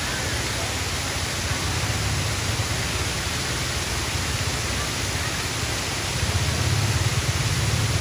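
Small waterfall pouring over a rock ledge into a pool: a steady rush of falling water, growing a little louder about six seconds in.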